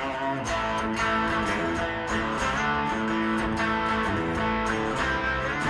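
A 1958 Gibson Les Paul Special electric guitar is played on its bridge P-90 pickup through a modelled Roland JC-120 amp with light Tube Screamer overdrive. Its chords and notes ring on and change every second or so.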